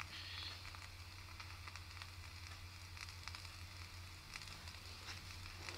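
Faint vintage surface noise: scattered crackles and clicks over a steady hiss and a low hum.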